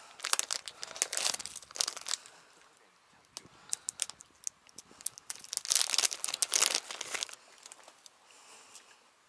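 Plastic soft-bait packet crinkling as it is handled and pulled open. It comes in bursts about a second in and again, loudest, around two-thirds of the way through.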